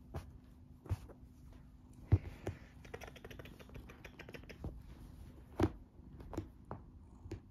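Scottish Fold cat purring steadily while a hand rubs its fur. Sharp clicks and scratchy rustling from the handling sit over the purr, the loudest click about two seconds in, with a run of fast fine ticks a little after three seconds.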